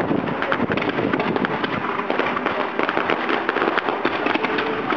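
Fireworks display: rising comets and shells bursting overhead make a dense, unbroken crackle of many sharp bangs a second.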